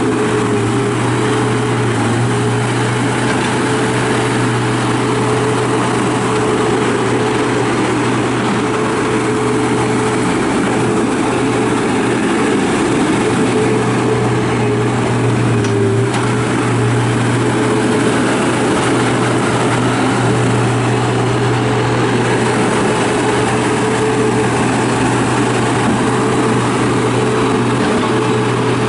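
John Deere CT332 rubber-track skid steer's diesel engine running at a steady speed, a constant drone with only a slight dip about halfway through.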